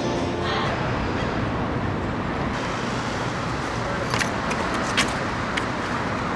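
Steady street traffic noise, with a few sharp taps in the second half.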